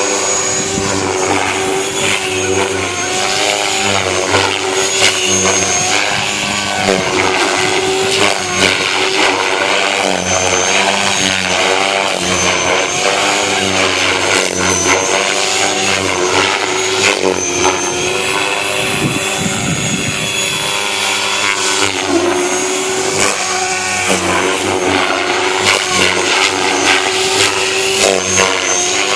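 Align T-Rex 500X electric RC helicopter flying: the motor whine and rotor blade sound rise and fall in pitch as it manoeuvres.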